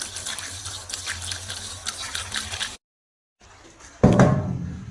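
Liquid being poured into a petrol generator through its filler opening, a steady pour that breaks off about three seconds in. A sudden loud knock follows near the end.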